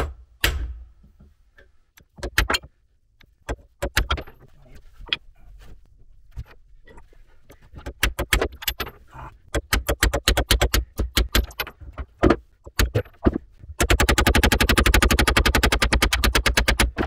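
Ratchet wrench with a 22 mm socket turning a fastener on a tractor's PTO bearing block, clicking in short strokes. Near the end it breaks into a fast, even run of clicks for about three seconds.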